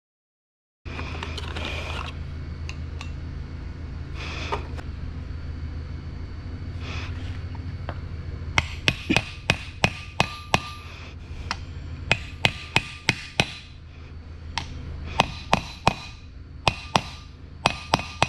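Hammer tapping on metal: a run of sharp strikes, about two a second, each with a brief metallic ring, starting about halfway through over a steady low hum.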